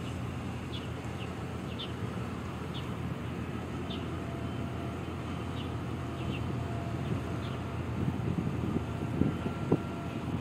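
Wind buffeting the microphone, a steady low rumble with stronger gusts near the end. Short high chirps come through it roughly once a second.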